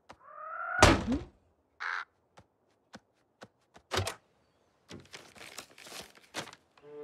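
Cartoon sound effects: a short rising crow caw, then a loud thunk about a second in. Scattered sharp taps and knocks follow, then a run of rapid paper rustling in the second half.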